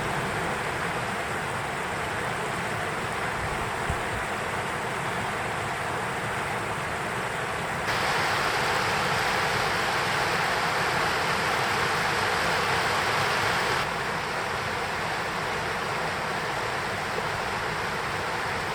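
Mountain river or stream rushing steadily, a constant wash of water noise that grows louder for several seconds in the middle.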